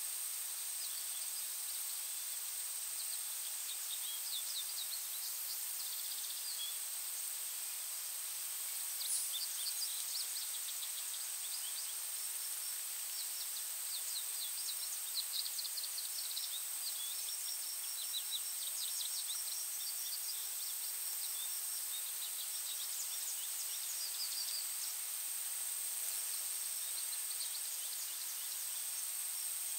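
Forest ambience: a steady high-pitched insect drone, with small birds chirping and trilling on and off, most busily through the middle.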